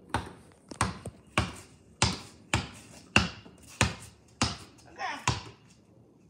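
Basketball dribbled on a concrete driveway: a steady run of sharp bounces, about two a second, that stops about five seconds in.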